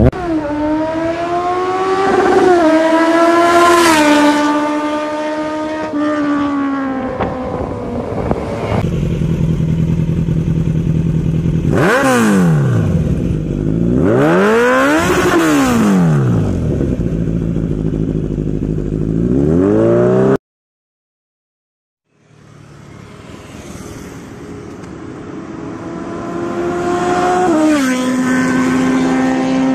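Kawasaki Z900 inline-four through an Akrapovic slip-on exhaust, revving in rises and falls with two quick throttle blips, each a sharp rise and fall in pitch. After a cut of about two seconds of silence, the engine accelerates again and settles to a steady note near the end.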